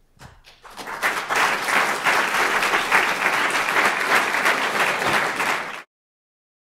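Audience applauding: a few first claps swell into full applause within about a second, and it cuts off abruptly near the end.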